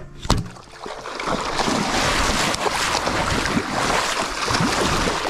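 A sharp knock about a third of a second in, then a steady rush of splashing water mixed with wind on the microphone.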